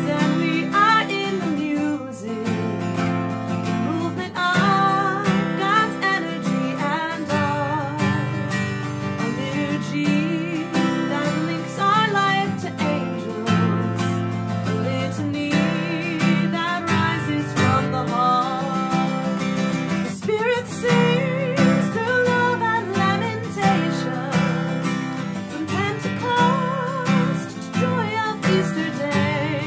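A woman singing a hymn, accompanying herself on a strummed acoustic guitar.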